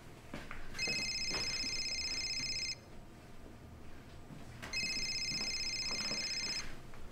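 Mobile phone ringing: a high electronic ringtone that comes in bursts of about two seconds, twice, with a two-second pause between.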